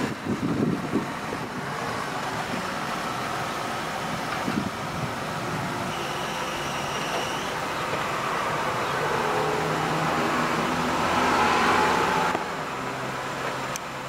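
Mercedes SLK230's electro-hydraulic retractable hardtop opening: a steady mechanical hum that grows louder, then drops sharply near the end. A short high tone sounds about six seconds in.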